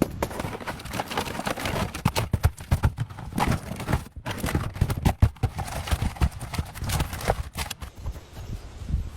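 Irregular knocks and thuds mixed with rustling, with no steady rhythm.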